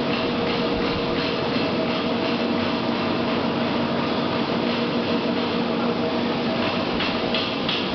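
Aluminium rod casting and rolling line machinery running: a loud, steady mechanical drone with a few steady hum tones and a light, rapid ticking that grows clearer near the end.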